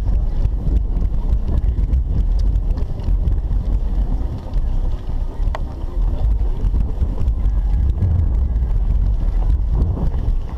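Steady low wind buffeting on the microphone of a camera carried near the ground while running, with faint footfalls of many runners on asphalt beneath it.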